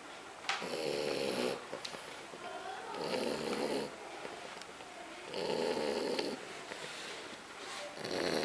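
French bulldog snoring in its sleep: four loud rasping snores, each about a second long, coming roughly every two and a half seconds with quieter breaths between, the last still going at the end.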